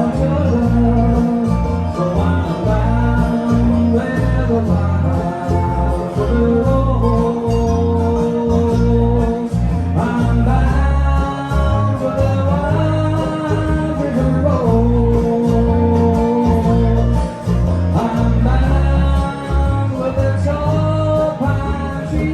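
Live bluegrass band playing a song, acoustic guitar and other plucked strings under a held, gliding melody line.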